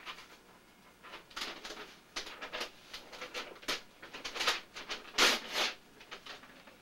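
A child scribbling on paper at a table: a run of short, irregular scratchy strokes starting about a second in, the loudest about five seconds in.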